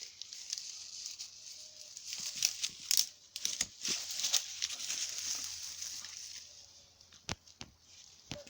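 Rustling and crackling of undergrowth with many small sharp snaps as a small terrier searches for its stick, thinning out after about six seconds to a few isolated snaps.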